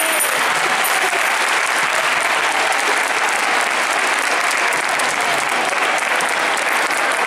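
Audience applauding steadily, the clapping starting just as the music stops.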